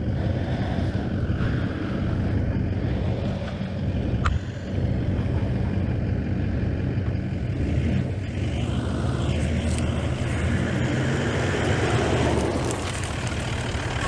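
Toyota LandCruiser being winched out of a bog: its engine and the front winch run steadily as the truck crawls forward on the winch line. A single sharp click about four seconds in.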